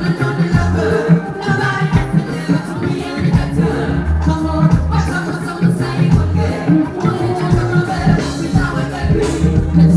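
Live pop music with a heavy bass beat and singing.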